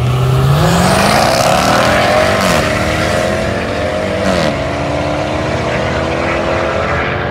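Two sports cars launching side by side from a standing start under full throttle. The engines climb steeply in pitch, with upshifts about two and a half and four and a half seconds in, and then keep pulling as the cars speed away down the runway.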